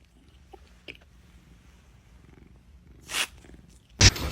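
A cat purring quietly, with a short breathy puff about three seconds in. A louder sound cuts in near the end.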